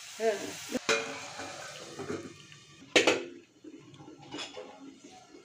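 Steel spatula clinking and scraping in a steel kadai, with a hiss from the hot pan that fades over a couple of seconds. About three seconds in, a loud metallic clank as the steel lid is set on the kadai, then a few lighter knocks.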